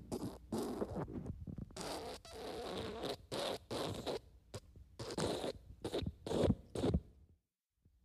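A series of wet fart sounds, one after another, some short and some longer. They stop about half a second before the end.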